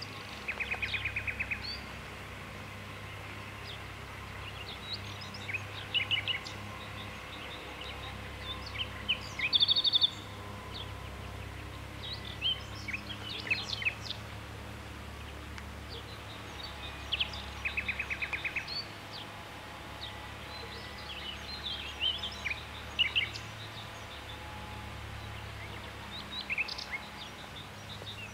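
Small birds singing and chirping over a steady low background rumble, with a fast buzzy trill about a second in and again a little past halfway, and a loud clear high note near the middle.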